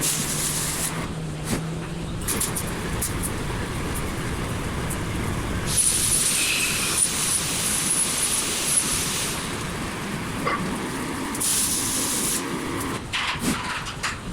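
Welding arc sizzling in bursts: two long stretches of bright hissing crackle, the first about six seconds in and lasting some three seconds, the second shorter, then a run of short crackles near the end.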